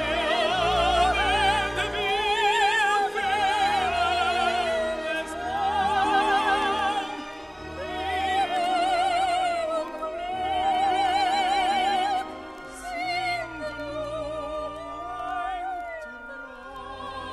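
Operetta singing from an old 45 rpm single: a high voice holds long notes with wide vibrato over an orchestra. The recorded sound is somewhat poor.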